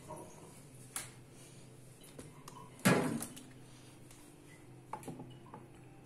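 Kitchen clatter: one loud knock about three seconds in, with a few lighter clicks before and after it, over a low steady hum.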